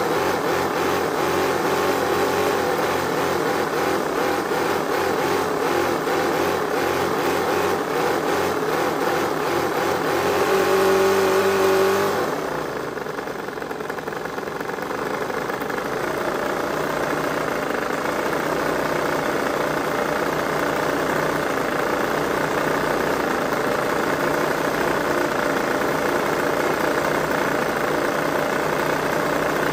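Toyan FS-V800 four-stroke V8 model engine running, blipped by hand at the throttle. It climbs to a louder, higher steady pitch about ten seconds in, drops back abruptly around twelve seconds, then settles into a steady idle.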